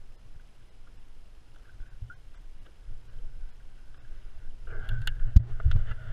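Hands handling gear on a plastic sit-on-top kayak: faint small clicks while a strip of mackerel is worked onto a treble hook, then near the end a low rumble and several sharp knocks as the fishing rod is picked up.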